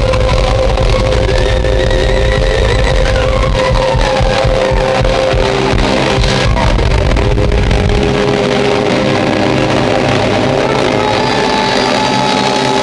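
A live band plays loudly through a PA, heard from within the crowd, with a singer on microphone over saxophone and guitars. The deep bass drops away about eight seconds in.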